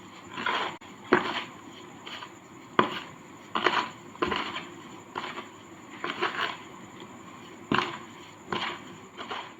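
Hardened sand cake crunching as it is scraped and broken apart: about a dozen short, uneven crunches, some sharp and loud, at irregular intervals.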